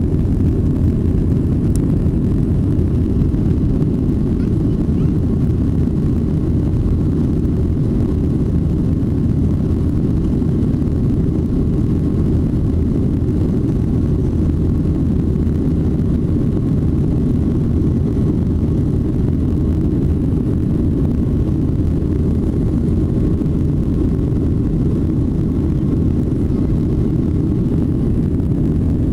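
Steady, deep cabin noise of a Boeing 737-800 in flight: its CFM56-7B jet engines and the rushing airflow, heard from inside the cabin at a seat over the wing.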